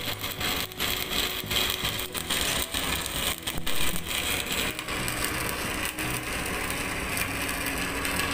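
Stick-welding arc crackling and sizzling as the electrode burns along the edge of a steel plate, with irregular sharp crackles that settle into a steadier sizzle in the second half.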